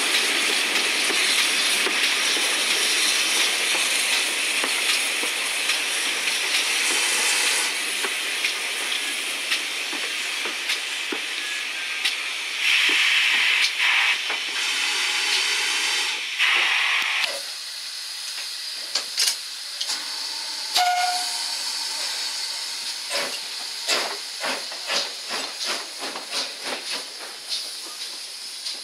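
GWR 1366-class pannier tank steam locomotive hissing steadily as it runs, heard from the footplate, with two short shrill whistle blasts about halfway through. After that comes a quieter stretch of sharp metallic clanks and knocks as the engine moves slowly.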